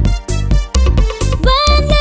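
Upbeat children's song music with a steady electronic beat; a sung line begins near the end.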